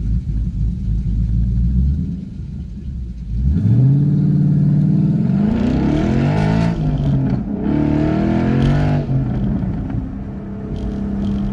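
Ford Mustang Boss 302's 5.0-litre V8 idling, then pulling away hard about three and a half seconds in. The exhaust note rises and falls through several gear changes, then settles to a steady cruise. It is heard from inside the cabin.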